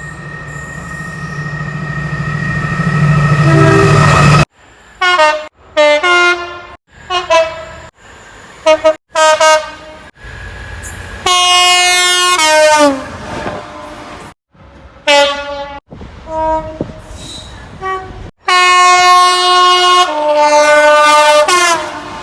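A rapid run of British train horns, cut together one after another. First a train approaches with a rising rumble and its horn sounding. Then come several short horn blasts that fall in pitch as trains pass. Near the end a long two-tone horn sounds a high note and then drops to a low note.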